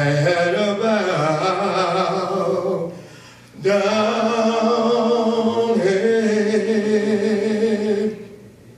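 A man singing solo and unaccompanied: two long phrases of held notes with a wavering pitch, with a short pause about three seconds in and the second phrase ending just before the end.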